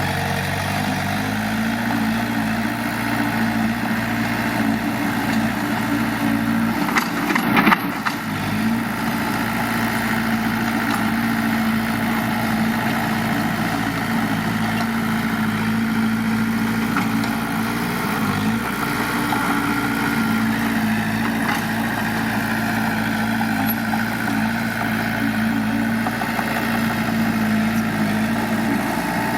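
Diesel engine of heavy earthmoving machinery running steadily at an even speed. A short, loud clank comes about seven to eight seconds in.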